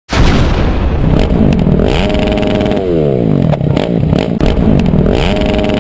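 A sudden loud rush of noise, then a motorcycle engine revving up, holding and dropping back twice, with sharp clicks in between.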